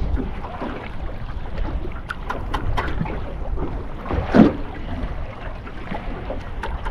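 Wind buffeting the microphone aboard a drifting boat, with a few light clicks between two and three seconds in and a short, louder knock about four and a half seconds in.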